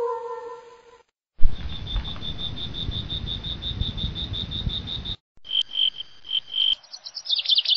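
The tail of a howl fades out in the first second. Then a cricket chirps steadily, about five chirps a second, over a low rumbling hiss, and near the end a bird starts a quick run of chirps.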